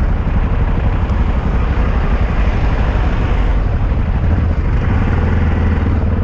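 Yamaha XT660Z Ténéré's single-cylinder engine running while riding, with the aluminium Roncar top case rattling constantly over it, a noise described as "muito barulho". The engine note settles to a steadier hum about four seconds in.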